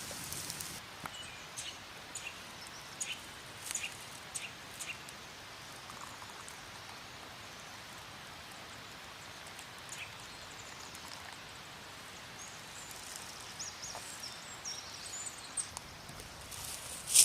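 Faint outdoor nature ambience: a steady rushing noise with scattered light clicks and a few brief high chirps, clustered in the first few seconds and again near the end.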